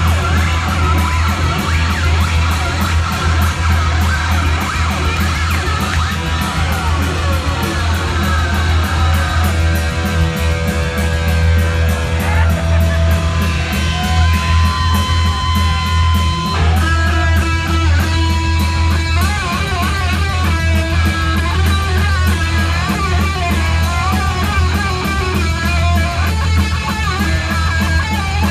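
Heavy metal band playing live and loud, with an electric guitar solo over a pounding low end. The guitar plays long held notes from about a third of the way in, then wavering, bending notes, drawn from the strings with a vibrator held against them.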